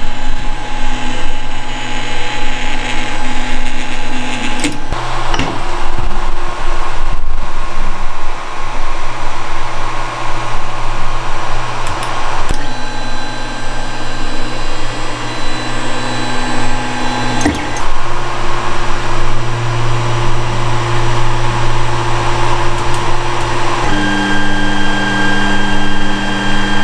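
Creality Ender-3 on its stock, non-silent mainboard auto-homing: its stepper motors whine loudly over a steady hum. The whine jumps to a new set of pitches every few seconds as different axes move, with a click at some of the changes. The whine comes from the stock board's noisy stepper drivers.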